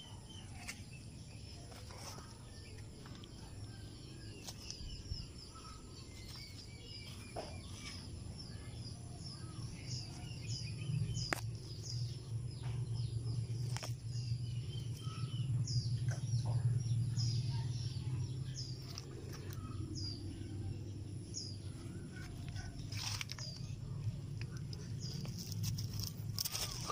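Outdoor garden ambience: small birds chirping again and again in short high notes, over a low rumble that swells in the middle and fades. Scattered sharp clicks and rustles as vegetable shoots are snapped off and leaves handled.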